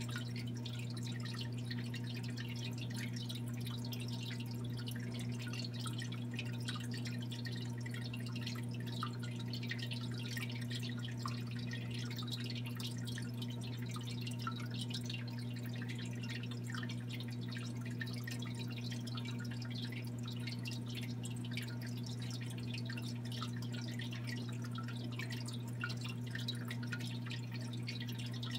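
Aquarium equipment running: a steady low pump hum under continuous fine trickling and crackling of circulating water and bubbles.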